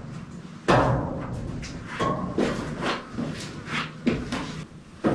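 Boots stepping across bare steel floor framing in a sheet-metal-walled body: a heavy clank about a second in, then a quick run of lighter metal clanks and knocks, one with a brief ringing tone.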